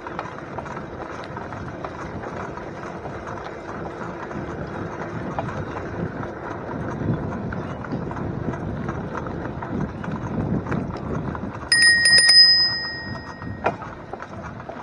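Bicycle rolling over a rough dirt path, its tyres making a steady crunching rustle. Near the end, the handlebar bell is rung in a quick flurry of strikes and rings on for about a second, a warning to people on the path ahead.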